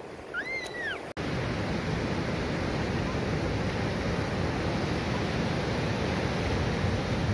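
Surf washing onto a beach: a steady rush of waves that starts abruptly about a second in. Just before it, a brief high cry rises and falls.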